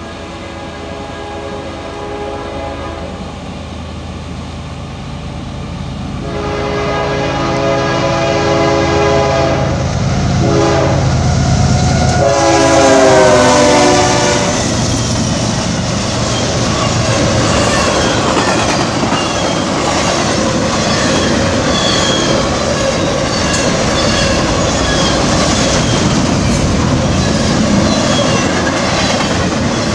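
Locomotive horn sounding the grade-crossing pattern, long, long, short, long, its pitch dropping during the last blast as the locomotive passes. A train's cars then roll by with steady clickety-clack from the wheels on rail joints.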